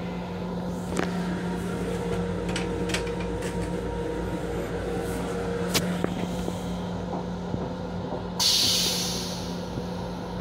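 Steady hum inside an M7 railcar's restroom, with scattered light clicks and rattles. About eight seconds in, a loud hiss starts suddenly and fades over a second or so.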